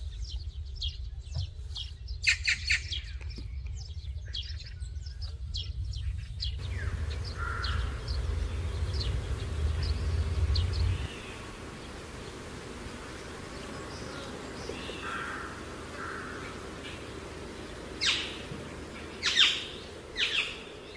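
Birds chirping and calling outdoors: quick, rapid chirps in the first six seconds over a low rumble that stops about halfway through, then scattered softer calls, with a few louder calls near the end.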